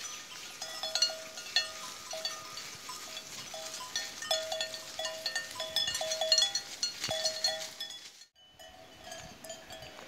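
Bells on walking cattle clanking irregularly, several ringing clanks a second. The clanking drops out briefly near the end and then goes on more faintly.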